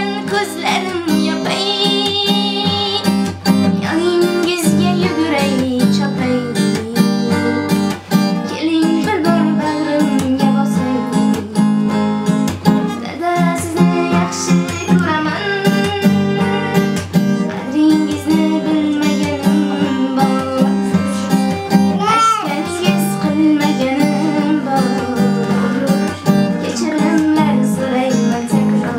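Acoustic guitar strummed in steady chords, with a young woman's voice singing a slow song along with it.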